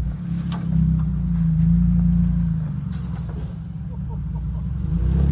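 Ford Bronco's engine and drivetrain rumbling at low speed while crawling an off-road trail obstacle, the engine note swelling for a second or so and then easing off.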